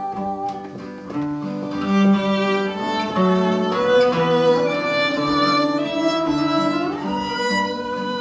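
Violin playing a swing-jazz solo melody over acoustic guitar accompaniment, sliding up into a long held note near the end.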